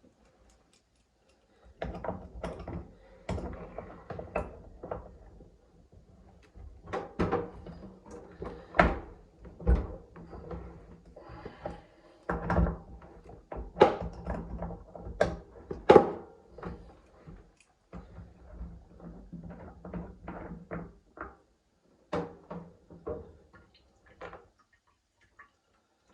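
Irregular clicks and knocks of tools and hands working on a dripping tap to take it apart. The loudest knocks come about halfway through, and the sounds stop shortly before the end.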